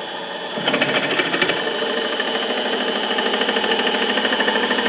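Small benchtop metal lathe running with its gear train whirring while a drill bit in the tailstock is fed into titanium. About half a second in the sound gets louder and takes on a fast, even chatter as the bit starts cutting.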